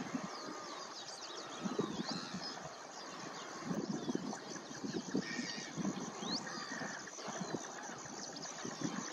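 A large flock of coots and other waterbirds calling together: many short, low calls overlapping in a dense chatter, with thin high calls that slide up or down scattered over it.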